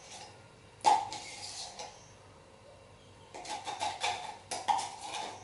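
A metal spoon knocking and scraping against a plastic cup as the last lye is cleared out of it. One sharp knock comes about a second in, then a run of clicks and scrapes starts about three seconds in.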